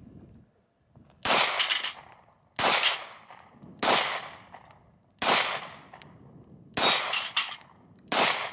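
Six single pistol shots from a semi-automatic handgun, spaced about one and a half seconds apart, each followed by a brief ringing tail.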